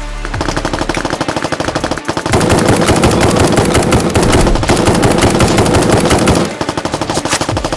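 Rapid automatic gunfire in one long continuous burst. It gets louder about two seconds in and eases back near the end.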